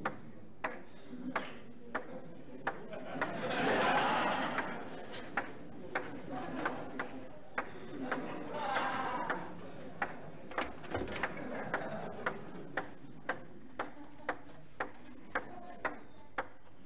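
Celluloid table tennis ball clicking off the bats and table in a long, steady rally, about two hits a second. Crowd murmur swells twice over the hits.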